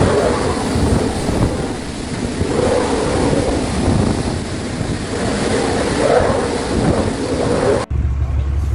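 A violent storm: strong wind buffeting the microphone with pounding hail, a dense continuous roar. It cuts off abruptly near the end to a low steady hum.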